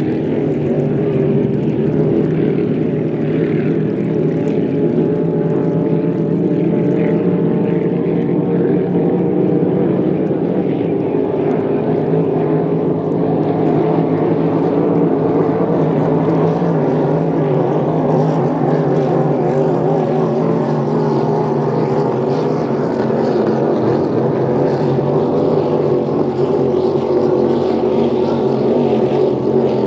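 Pro-Lite class inboard racing hydroplane engines running at racing speed: a loud, steady drone of several layered tones that wavers slightly but holds its level throughout.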